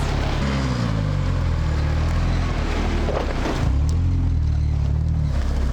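Lada Niva engine pulling away at low speed: its pitch rises, drops back, then rises again as it is driven off and shifted up a gear.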